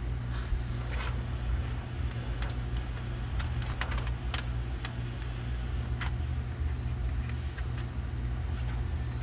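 Plastic window tint film crackling and ticking in scattered bursts as it is handled and laid against wet glass, over a steady low hum.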